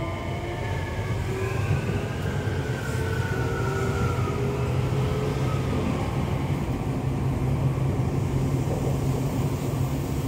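Tokyo Metro 7000 series train's Hitachi IGBT VVVF inverter and traction motors whining under power, several tones sliding in pitch and then fading out about five seconds in. A steady low rumble of the train running on the rails continues, heard from inside the car.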